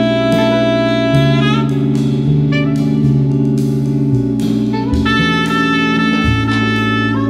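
Jazz band playing: saxophones hold long notes over drums and a bass line that steps to a new note every second or so.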